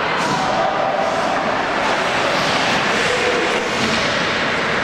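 Steady noise of an ice hockey game in the rink: skates scraping on the ice mixed with faint distant voices.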